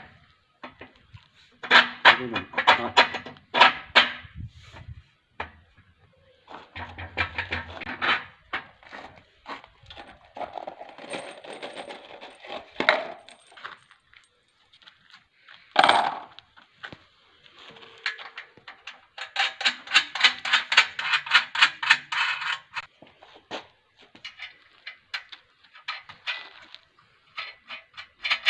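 Steel bolts, nuts and washers clinking and rattling as they are handled and fitted into a steel crane frame, with several runs of quick clicking.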